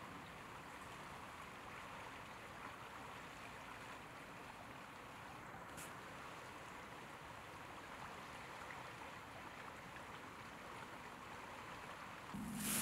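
River water flowing, a faint, even rushing. Near the end a louder low hum and a few clicks come in.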